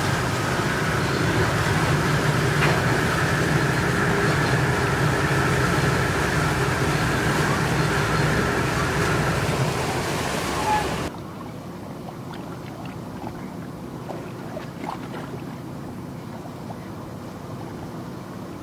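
A vessel's engine running steadily with a constant hum, cutting off abruptly about eleven seconds in and leaving fainter steady waterside noise.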